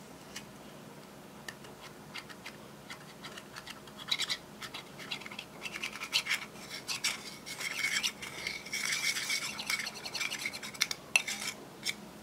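A small tool scraping and breaking up pressed eyeshadow in its pan: rapid scratchy clicks, a few scattered at first, thickening into continuous scraping from about four seconds in.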